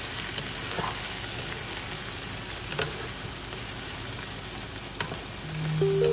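Chicken drumsticks and sliced onions sizzling in ghee in a nonstick frying pan, stirred with a slotted spatula that gives a few light clicks against the pan. Background music starts near the end.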